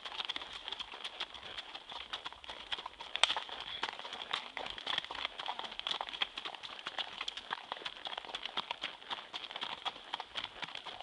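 Hooves of racking horses clip-clopping at a quick, even pace, with a steady high-pitched buzz behind them.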